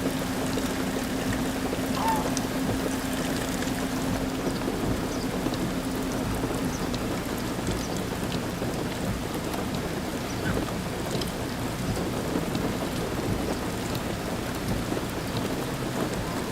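Heavy rain falling steadily, with a faint steady low hum underneath that stops about six or seven seconds in.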